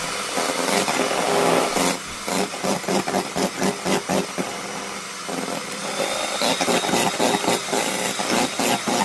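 Coffee being whipped into a cream: a loud churning noise with rapid, regular beating strokes, several a second, from about two seconds in.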